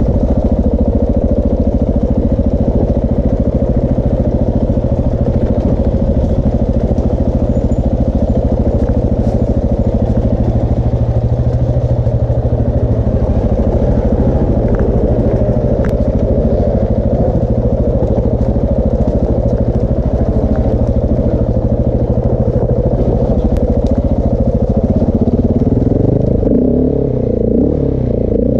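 KTM 690 Enduro R's single-cylinder four-stroke engine, fitted with a Wings exhaust, running under way at a fairly steady pace. In the last few seconds the revs rise and fall.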